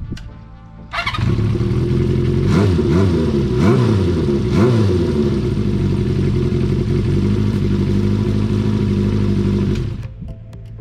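Honda CB400Four's inline-four engine running through a Yoshimura short exhaust. It comes in suddenly about a second in, is blipped three times in quick rising-and-falling revs, then idles steadily and cuts off near the end.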